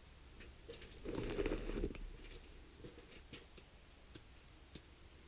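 Handling noise from an AR-15 and its gear: a short rustle about a second in, then a series of light, separate clicks.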